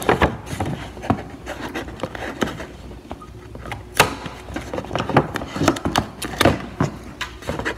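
Toy packaging being worked open by hand: irregular rustling with sharp clicks and snaps, the sharpest about four seconds in.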